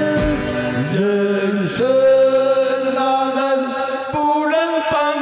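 A live band's male voices singing long held notes, one sliding down in pitch about a second in, over the band with a few drum and cymbal hits.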